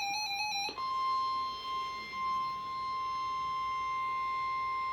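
Emergency alert tones: a short stepping electronic warble that cuts off less than a second in, followed by a single steady high-pitched tone held unbroken, the Weather Radio warning alarm tone that comes before a flash flood warning message.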